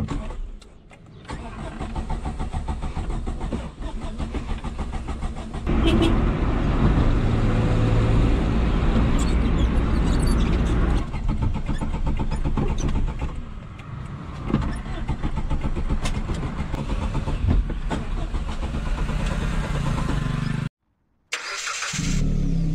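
Suzuki Khyber/Cultus G10 three-cylinder petrol engine running under way, heard from inside the cabin. It gets louder about six seconds in and eases off again about eleven seconds in. The sound cuts out briefly near the end.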